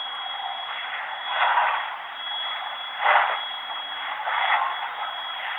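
A strange, loud hissing, rasping noise coming from a tree, swelling and fading about three times over a steady background hiss.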